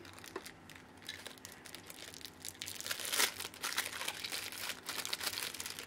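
A clear plastic packaging bag crinkling as it is worked open by hand and a snorkel part is pulled out. The crinkling is sparse at first and becomes dense and louder from about halfway through.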